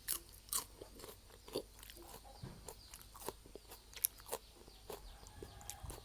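A person chewing food close to the microphone, with irregular crunches and wet mouth clicks.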